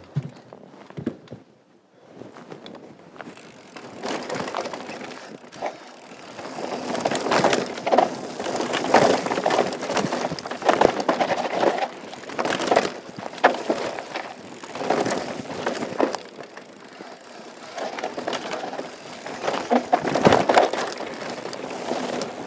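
Mountain bike riding fast down a dirt trail: the tyres crunch over dirt and rocks, and the bike rattles and knocks over the bumps. It starts quietly and gets loud about four seconds in as the bike picks up speed.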